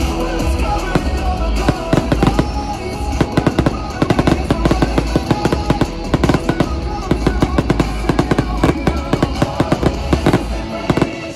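Aerial fireworks popping and bursting in rapid, dense succession, over loud music with a heavy steady bass.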